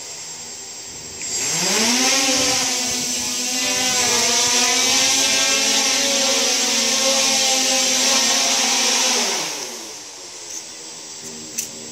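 S500 quadcopter's four electric motors and propellers spinning up with a rising whine about a second in as it lifts off, holding a steady buzzing hum while it hovers, then winding down in falling pitch as it lands.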